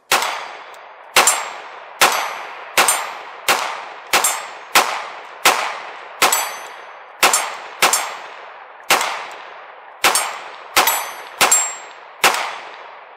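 A 9mm Glock 45 pistol in a carbine conversion kit firing a full magazine in a steady string, about a shot every two-thirds of a second with a few quick pairs. The steel plate targets ring as they are hit.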